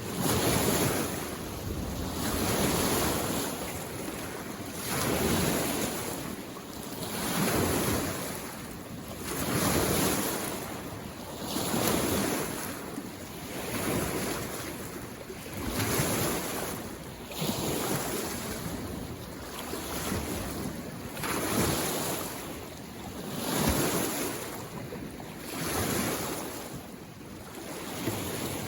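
Small lake waves washing in on the shore in a steady rhythm, one surge of rushing water every two seconds or so.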